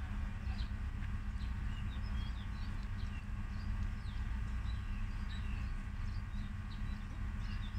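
Diesel railcar idling at a standstill, a steady low hum, with many small birds chirping sharply over it.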